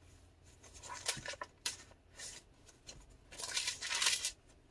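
Pages of a handmade paper journal being turned by hand, the paper rustling in a few short bursts, with a longer, louder rustle near the end.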